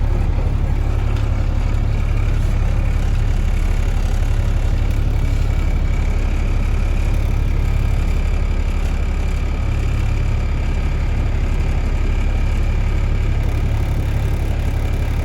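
Semi-truck's diesel engine running steadily, a low even drone with no change in pitch or level.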